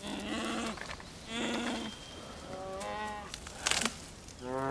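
Bear cubs bawling: three short calls, the third higher-pitched, then a fourth rising call near the end. A sharp click sounds just before the last call.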